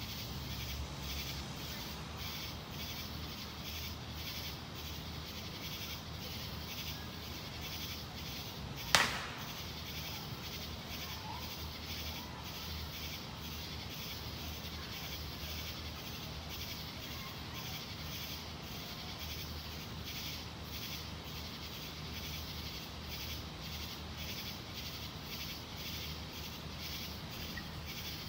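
A single sharp firework bang about a third of the way in, much louder than anything else. Behind it, night insects chirp in a steady rhythm of two or three pulses a second over a low steady hum.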